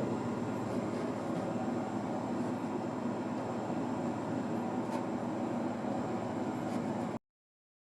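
A steady mechanical running noise, like a motor or machine, even throughout, that cuts off abruptly about seven seconds in.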